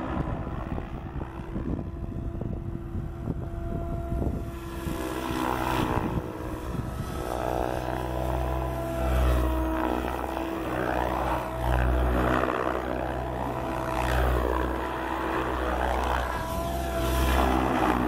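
Electric motor and main rotor of a SAB Goblin 770 RC helicopter in flight: a steady whine with blade swish, its pitch sweeping up and down repeatedly as the helicopter manoeuvres, from about five seconds in.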